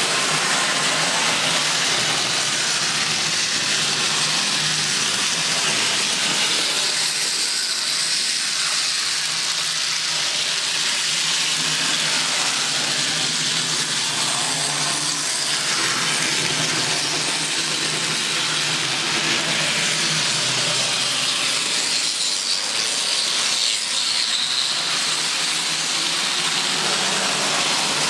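Model trains running on the layout's track: a steady rolling hiss with a low hum beneath.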